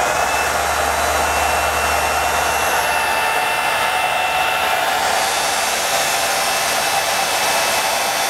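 Hydraulic pump running steadily under load, driving the Swage 115-ton press's ram through a compression of the coupler. It makes an even noise with a thin high whine; a low hum drops out about three seconds in.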